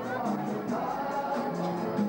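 Music, with held melody notes over a regular percussion beat.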